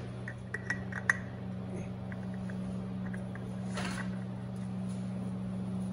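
New oil filter being turned by hand onto a compact diesel tractor's filter mount: a few light metal clicks in the first second or so and a brief brushing sound near four seconds, over a steady low hum.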